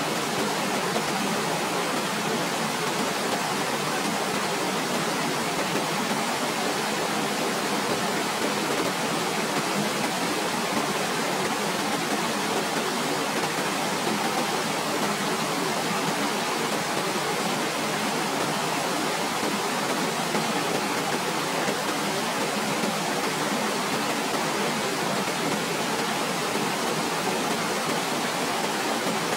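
Waterfall: a steady, unbroken rush of falling water, even in level throughout, with little deep rumble.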